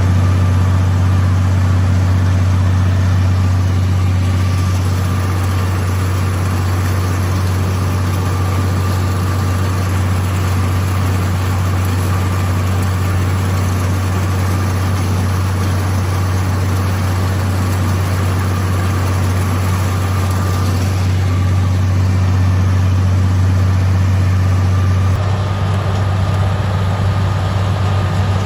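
John Deere 9670 combine running steadily while harvesting corn: a low, even engine drone with a steady higher whine above it. The sound shifts a little about 25 seconds in.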